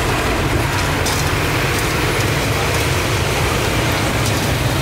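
Steady din of road traffic, engines running past without a break.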